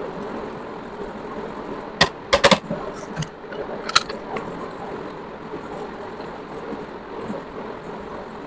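A few sharp clicks and knocks from handling a computer mouse and phone at a desk: one about two seconds in, a quick cluster just after, and another near four seconds, over a steady background hum.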